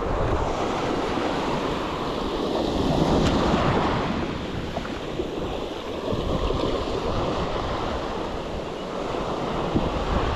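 Ocean surf washing up the beach with wind on the microphone; the wash swells louder about two to four seconds in and again near the end.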